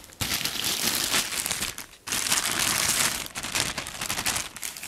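Thin plastic bag rustling and crinkling as it is handled and rummaged through, in two stretches with a brief break about two seconds in.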